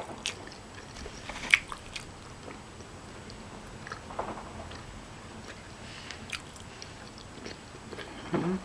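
A person chewing food close to the microphone, with scattered wet mouth clicks and lip smacks, one sharper than the rest about a second and a half in. A brief voiced sound, like a hum, comes near the end.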